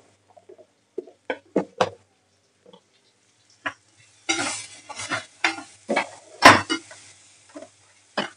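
Slotted metal spatula knocking and scraping against a nonstick kadai as an onion-tomato masala is stirred. A few separate knocks come first, then from about four seconds in the stirring runs on with sizzling frying in oil, and a sharper knock comes a little later.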